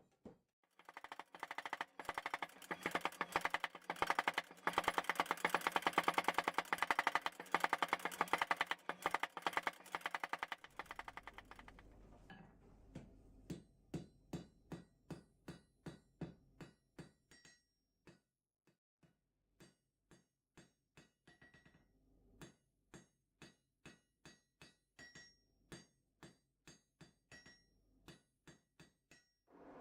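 Hammer forging a steel chisel blank: a fast, dense run of blows for about the first ten seconds, then slower separate hammer strikes on the anvil, about two a second with short pauses, each with a bright ringing note.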